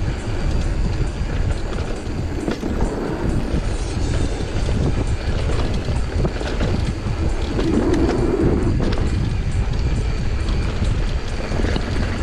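Mountain bike rolling fast down a dirt trail: knobby tyres on dirt, the bike rattling and clattering over bumps. Wind buffets the action-camera microphone with a steady rumble.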